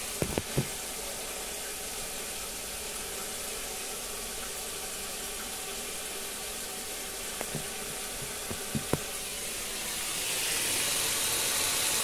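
Tap water running steadily over chwinamul (aster greens) being rinsed in a kitchen sink, with a few light knocks and clinks about half a second in and again near two-thirds of the way through.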